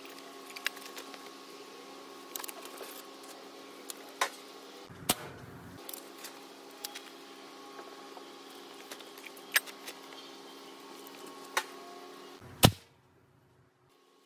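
A steady hum under scattered sharp clicks and knocks from handling gear. The loudest is a single sharp crack near the end, after which the hum cuts off suddenly.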